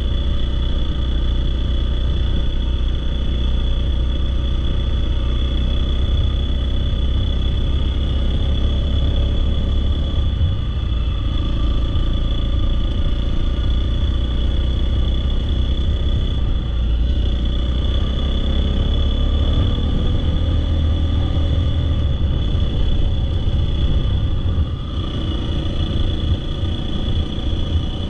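Dirt bike engine running as it is ridden, under a heavy, steady low rumble.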